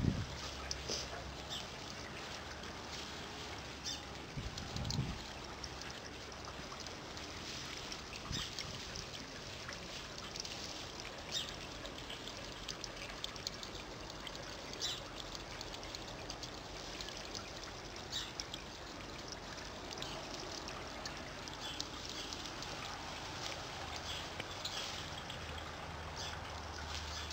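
Outdoor garden ambience: a steady hiss with scattered short, high chirps, and a low bump about five seconds in.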